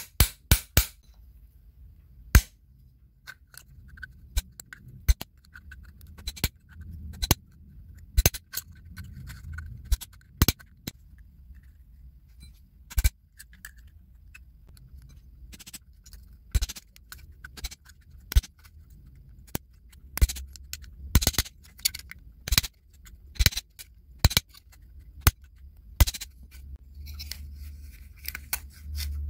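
Sharp taps of a steel wrench used as a hammer, striking a hand-held pin punch to pierce holes in the bottom of an aluminium soda can. The many strikes come at uneven intervals.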